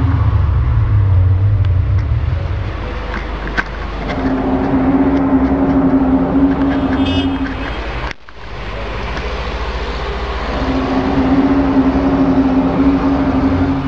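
Loud, low droning hum of the kind reported as an unexplained noise from the sky: one steady low note that swells in and fades out in long waves over a deep rumble. It cuts off abruptly about eight seconds in, then the same drone builds again.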